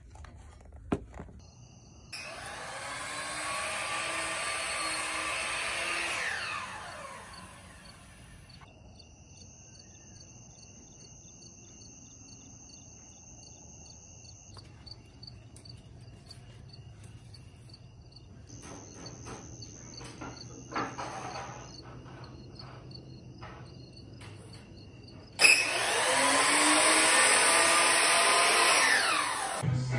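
Miter saw run twice, heard from outdoors through an open window: each time the motor starts suddenly and then winds down with a falling whine, about two seconds in and again near the end. Insects chirp steadily between the two runs.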